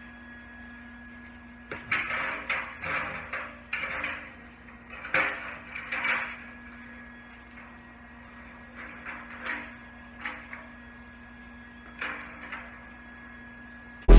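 Irregular knocks and short scraping clatters, most of them between about two and six seconds in, over a steady electrical hum: parts of a steel welding cart being handled and moved in the shop.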